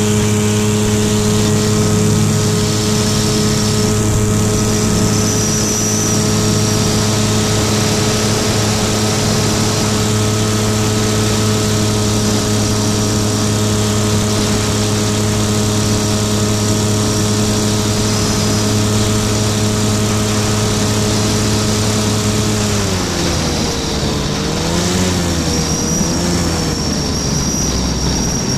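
Light aircraft engine and propeller running at steady high power from aboard during the takeoff roll and climb, with wind rushing past. About 23 seconds in, the engine note drops and then wavers up and down.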